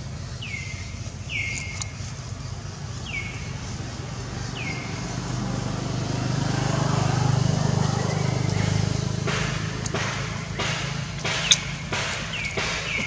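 A motor vehicle passes, its low rumble swelling and fading through the middle few seconds. Short high chirping calls, each dropping in pitch, repeat four times at the start and again near the end. Dry leaves crackle in the last few seconds, with one sharp click.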